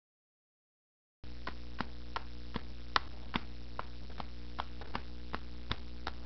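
After about a second of silence, a steady low hum comes in with a regular tapping over it, about two and a half taps a second.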